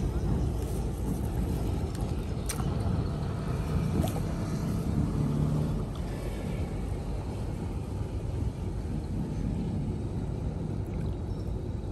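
Steady low rumbling noise, with a couple of faint clicks about two and a half and four seconds in.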